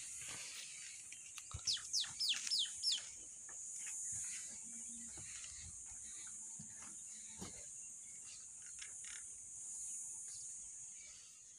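Outdoor ambience: a bird calls in a quick run of about five falling chirps about two seconds in, over a steady high-pitched hiss that swells and fades, likely insects.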